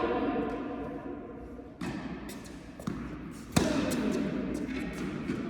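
Tennis ball impacts on an indoor court: a few sharp knocks of ball on racket or floor, the loudest about three and a half seconds in.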